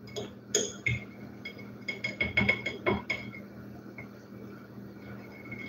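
Metal utensil clinking against a ceramic plate and an aluminium baking pan as a cinnamon roll is served. A quick run of light clinks, each ringing briefly, mostly in the first three seconds, then only a faint ring.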